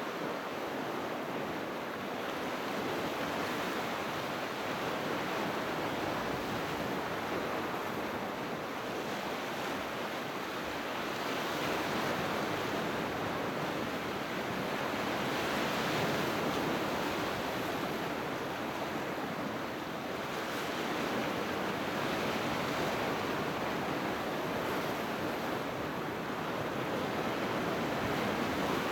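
Sea surf: waves breaking and washing ashore in a continuous rushing noise that swells and eases gently every few seconds.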